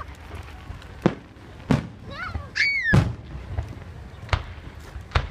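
Sharp cracks of small fireworks going off, about five at irregular intervals.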